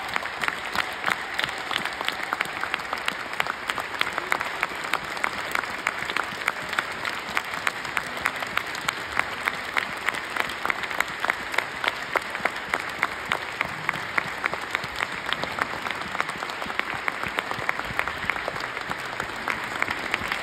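Theatre audience applauding steadily, a dense patter of many hands with individual sharper claps standing out above it.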